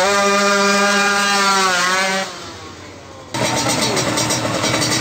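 Motorcycle engine revved up and held at high revs for about two seconds, then falling away. About a second later a rougher engine sound comes back in suddenly and runs on.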